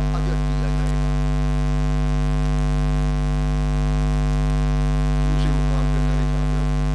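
Steady electrical mains hum in the microphone and sound system: a loud, unchanging low buzz with many overtones.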